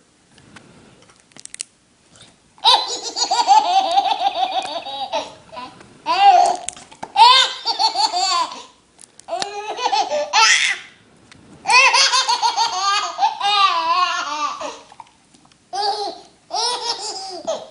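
High-pitched human laughter in repeated fits, starting about three seconds in and breaking off and resuming several times.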